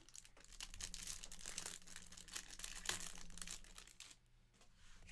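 Plastic wrapper of a trading-card pack crinkling as it is torn open and pulled off the cards: a dense run of crackles that dies down about four seconds in.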